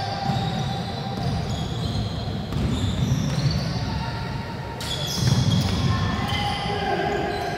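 Live basketball play on a wooden court in a large hall: the ball dribbled and bouncing on the floor, short high-pitched sneaker squeaks, and players' voices calling out, all echoing. One sharp knock comes about five seconds in.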